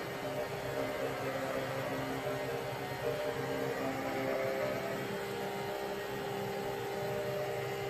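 Small electric motor of a kitchen appliance running with a steady whirring hum, with several steady tones that do not change.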